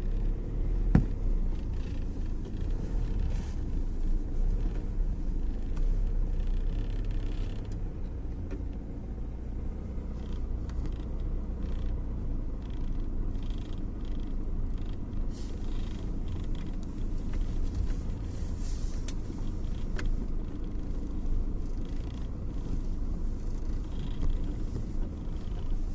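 Inside a moving car's cabin: a steady low rumble of road and engine. Short faint creaks recur every few seconds as the windshield rubs against its lower rubber seal, which the owner puts down to sand and dirt collecting under the seal below the wipers.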